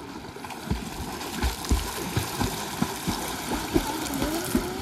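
Water splashing and churning as people swim, with low thumps every half second or so.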